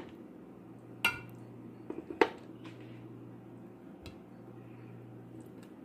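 Tongs clinking against the side of a cooking pot as pieces of pork adobo are picked out: a few sharp clinks, one about a second in ringing briefly, and a quick cluster around two seconds. A steady low hum runs underneath.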